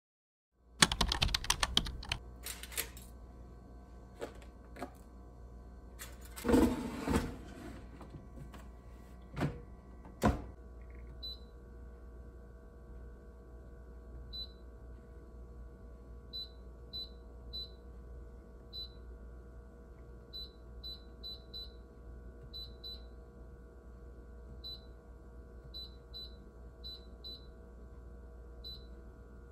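Several loud knocks and clattering in the first ten seconds, then a steady hum with short high-pitched pips repeating at irregular intervals.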